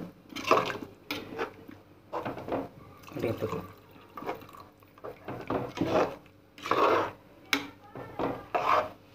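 A steel ladle stirring curry in an aluminium pressure cooker, scraping against the pot about once a second. There is one sharp clink about three-quarters of the way through.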